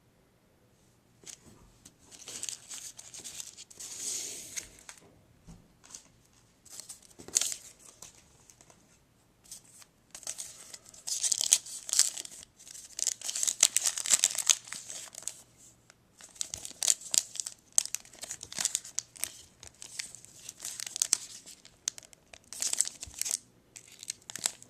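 Trading-card pack wrapper being torn and crinkled by hand in repeated bouts of crackling, with short quiet gaps between them.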